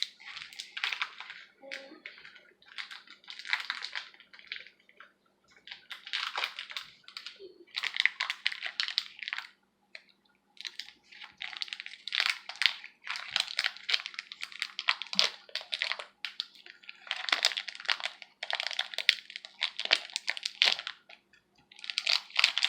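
Clay-like slime being squeezed and kneaded by hand, making crackly, squishy sounds in repeated bursts with short pauses between them.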